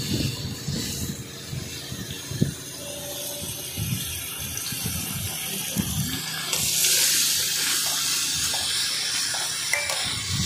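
Pork slices sizzling in oil in a metal wok, with a metal spatula scraping and knocking against the pan now and then. The sizzle grows louder about six and a half seconds in.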